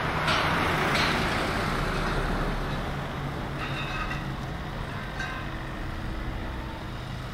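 Road traffic: truck engines running with a low hum and tyre noise as the vehicles pull away, slowly fading.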